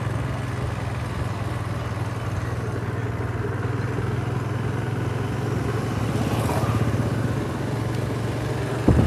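Honda Activa scooter's engine running steadily under way, a constant low hum.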